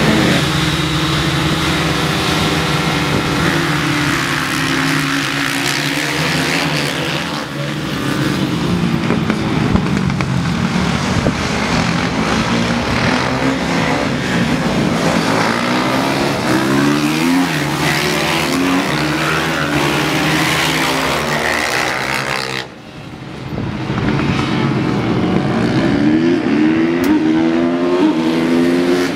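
Small supermoto race motorcycles' engines revving on the track, pitch repeatedly climbing and dropping with throttle and gear changes, several bikes overlapping. The sound drops away sharply for a moment about 23 seconds in, then the revving picks up again.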